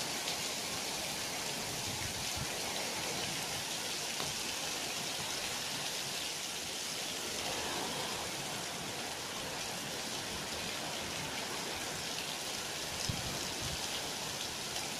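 Heavy wind-driven rain pouring down steadily, an even, dense hiss.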